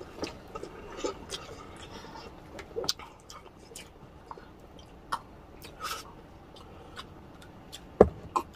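Close-miked eating and drinking sounds: chewing, lip smacks and gulps of water from a glass mug, with scattered small clicks. One loud sharp knock about eight seconds in.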